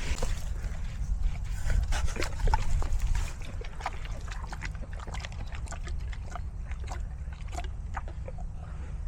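A pig chewing and smacking on its food: many short, irregular wet clicks over a steady low rumble.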